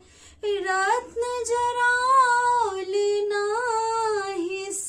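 A woman singing a Maithili wedding folk song solo, in long held notes that bend and waver in pitch. The voice comes in about half a second in, after a brief pause.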